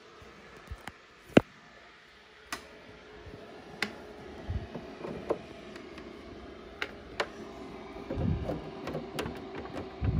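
Scattered sharp clicks and knocks of hands handling a desktop computer and its cables, one loud click a little over a second in and a few dull thumps near the end, over a faint steady hum.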